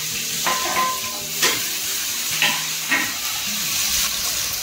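Chopped onion sizzling steadily as it fries in hot oil in a kadhai, just added to a panch phoron tempering. A spatula stirs through it, with a few sharp knocks and scrapes.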